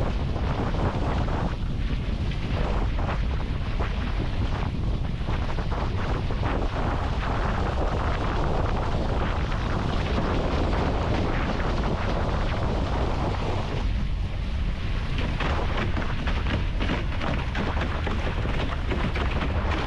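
Wind buffeting the microphone and water rushing past the hulls of an A-Class racing catamaran sailing at speed, a steady rumbling noise throughout.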